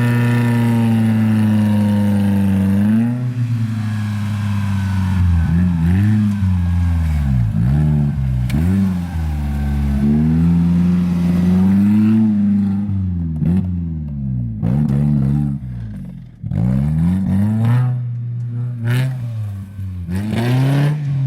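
Off-road vehicle's engine running at steady high revs, then revving up and down over and over as it works through rough ground. Scattered knocks and clatter come in the second half.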